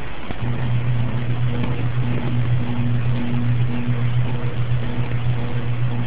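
Hampton Bay Littleton 42-inch ceiling fan motor (SMC-made, model HUB42) humming under a steady rush of air. A steady low hum sets in about half a second in, with a fainter higher tone that comes and goes. This fan is known to hum a lot on its medium and low speeds.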